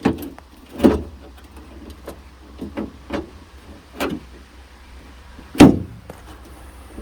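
Knocks and clunks of parts being fitted into a car door: a string of light knocks and one loud knock about five and a half seconds in.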